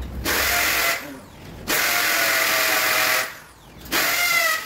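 A power drill run in repeated bursts, each about a second long with short pauses between, a steady whine over a hiss. Near the end, high squeaky chirps that fall in pitch start up.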